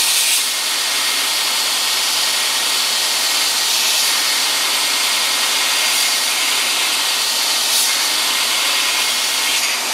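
Homemade treadmill-motor 2x72 belt grinder grinding the end of a piece of quarter-inch steel plate on an 80-grit belt. A steady, hissing rasp of abrasive on steel runs without a break.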